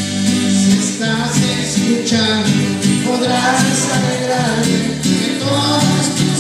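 An alabanza, a Mexican hymn of praise to the Virgin of Guadalupe: music with guitar and a bass line, and singing that comes in about a second in.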